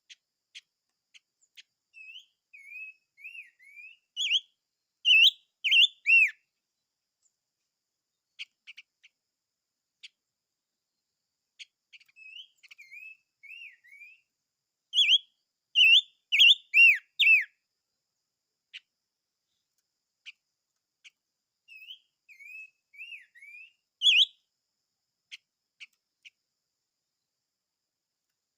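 A songbird, the bird sold in Vietnam as 'chim ngũ sắc', singing three bouts of song. Each bout starts as a run of short, quick whistled slurs and ends in a few loud, sweeping falling notes, with faint ticks in the pauses between bouts.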